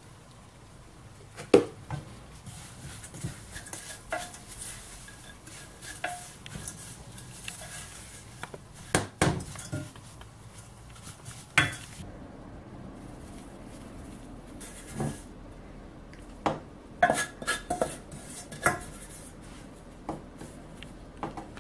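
Wooden spoon stirring sliced almonds and coconut flakes in a stainless steel pot: scraping, with scattered sharp knocks of the spoon against the pot, the loudest about a second and a half in. Near the end, a quick run of clicks and knocks as the spoon spreads the almond topping over the cake.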